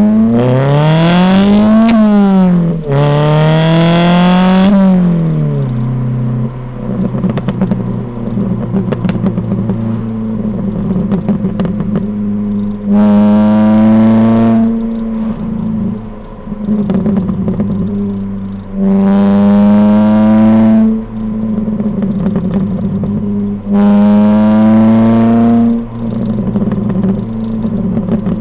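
Modified exhaust of a Ford Fiesta ST150 with its 2.0-litre four-cylinder, heard at the tailpipe: the revs climb and drop twice in the first six seconds, then the car makes three short loud pulls with rising revs, each about two seconds long. Between the pulls the exhaust crackles and pops as the throttle closes.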